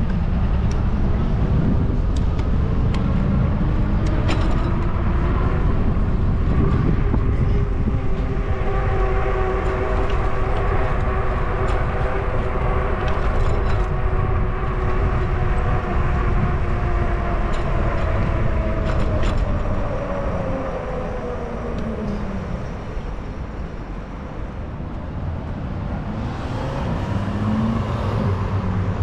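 Bicycle riding noise: wind buffeting the microphone and road rumble, with a humming whine that slowly rises in pitch as the bike gathers speed and falls away as it slows, and a few light knocks over bumps. The noise drops off after about twenty seconds as the bike comes to a stop.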